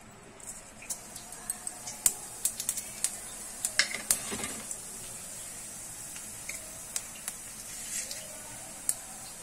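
Hot oil in a steel kadhai sizzling as seeds fry in it. Sharp crackling pops come thick for the first four seconds or so, then thin to a steady sizzle with an occasional pop.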